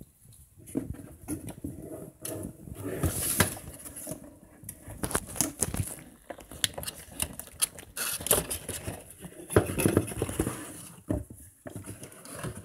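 Hands handling a dropper seatpost and its packaging: irregular small clicks and taps, with a few stretches of rustling.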